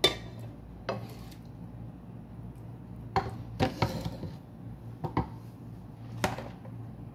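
Wooden spatula knocking and scraping against a metal pot while spreading cooked meat over rice: about six sharp knocks scattered through, the first the loudest.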